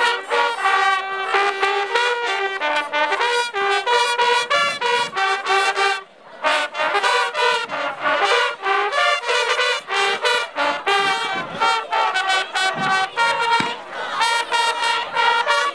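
Trumpets playing quick runs of short, loud notes, with a brief break about six seconds in.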